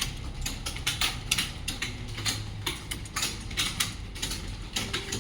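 Many computer keyboards clattering at once as a roomful of typists type quickly during a timed typing test: a dense, irregular stream of key clicks with no steady rhythm.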